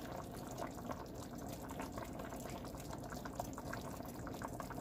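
Pot of beef stew bubbling gently on the stove, with many small irregular pops and ticks over a steady low hiss.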